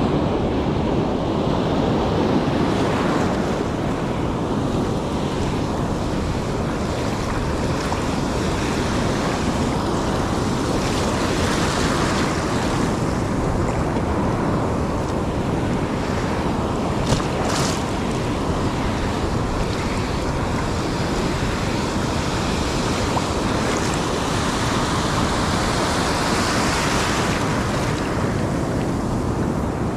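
Ocean surf breaking and washing up the beach in a steady rush that swells and eases, with wind on the microphone. A short sharp sound cuts in once a little past halfway.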